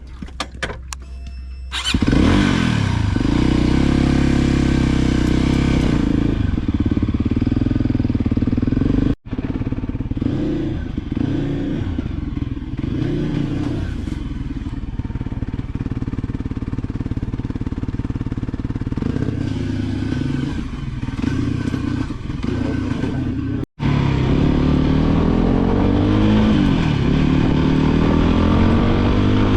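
Voge 300 Rally's single-cylinder engine running under way, its pitch rising and falling with the throttle. A few clicks come first, the engine comes in about two seconds in, and it breaks off abruptly twice.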